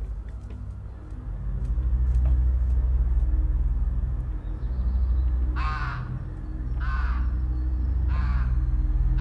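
A raven calls four times, harsh caws about a second apart starting just past halfway, over a steady low rumble.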